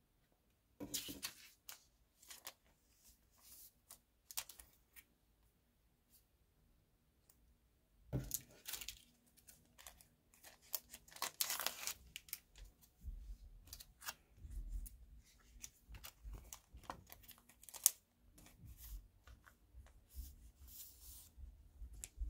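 Paper and packaging rustling and crinkling as glossy photo prints are handled and shuffled by hand. There are a few short rustles at first, then a busier stretch of sliding and tearing-like paper noises, with one sharp click late on.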